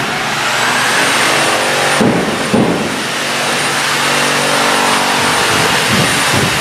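A motor-driven machine running steadily: a loud rushing noise with a thin high whine over it, its lower tones changing slightly about two seconds in.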